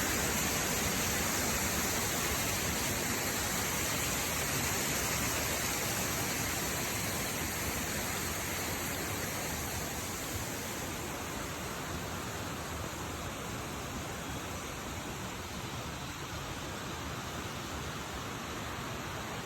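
Waterfall: a steady rush of falling water that slowly grows a little fainter.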